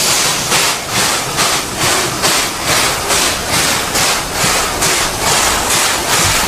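Steam locomotive chugging: a steady, hissing chuff at about two and a half beats a second.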